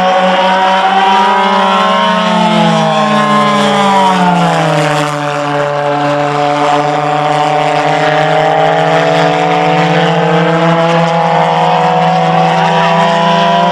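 Two pulsejet engines on radio-controlled He 162 Volksjäger model jets flying overhead, a loud, steady buzzing drone. Their pitches slide down between about two and five seconds in as a plane passes, and one rises again near the end.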